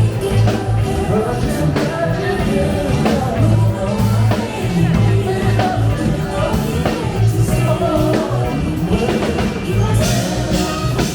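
Live funk and soul band playing, with a bass line, a drum kit and a lead melody line over them.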